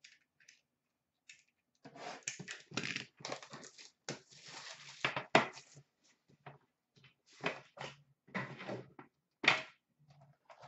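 A metal hockey card tin being handled and opened, and the cardboard box inside pulled out: a run of irregular rustles and scrapes with a sharp click, then a few shorter scrapes near the end.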